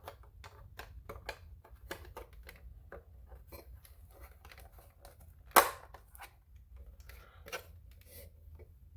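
Plastic parts of a hand-held radio-control transmitter being handled and fitted back together: scattered small rubs, scrapes and clicks, with one sharp, much louder click about five and a half seconds in.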